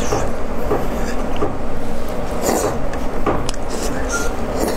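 Close-up wet chewing and smacking of braised pork belly, with irregular soft clicks from the mouth and chopsticks over a steady background hiss.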